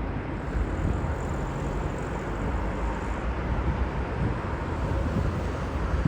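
Jet airliner engines heard from the ground: a steady low rumble, with a faint high whine over roughly the first three seconds.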